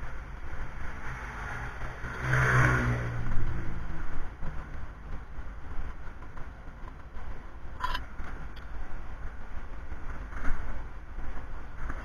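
A motor vehicle's engine swells and fades over a couple of seconds near the start, over a steady low rumble, with a few brief light clicks later on.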